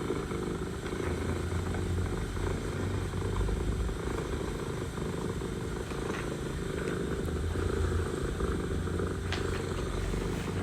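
Mother cat purring, a steady low rumble.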